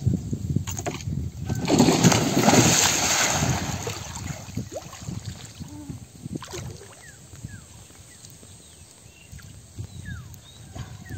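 Pond water splashing and sloshing as a person plunges in and moves through it chest-deep. The loudest splashing comes about two seconds in, then it settles to softer sloshing.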